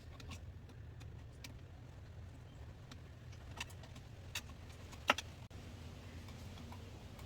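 A few sharp clicks and knocks from a screwdriver and hose clamp as a rubber air intake hose is loosened and worked off, the loudest about five seconds in, over a steady low background hum.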